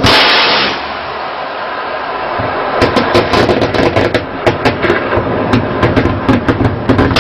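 Shipboard naval cannon firing at sea: a loud rush of noise in the first second, then from about three seconds in a rapid, irregular string of gunshots, several a second.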